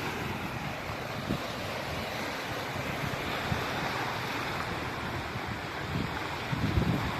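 Sea waves washing in as a steady rush, with wind buffeting the microphone in low gusts that grow stronger near the end.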